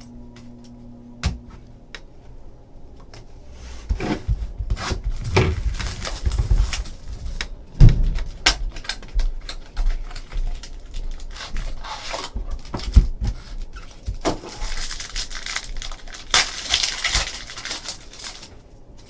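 Trading card packs and cards being handled: a run of taps, knocks and rustles, with a longer crinkling stretch of pack wrapper about three-quarters of the way through.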